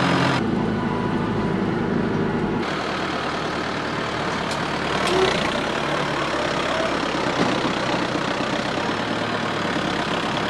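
Hürlimann tractor's diesel engine running as it is driven up the ramps onto a low-loader trailer. The sound turns rougher and noisier about two and a half seconds in.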